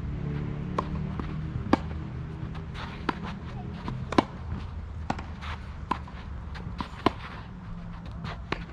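Tennis ball being hit back and forth in a rally on a clay court: sharp racket hits and ball bounces about once a second, the loudest from the near player's forehand about four seconds in, with softer footsteps on the clay between.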